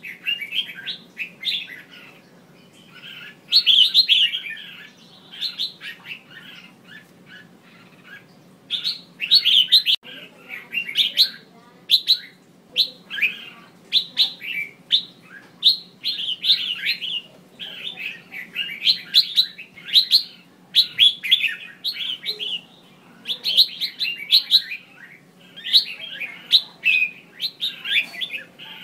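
Female red-whiskered bulbul calling: quick clusters of short, high chirps and trills, repeated every second or so. These are the female's calls used to stir a male bulbul into singing.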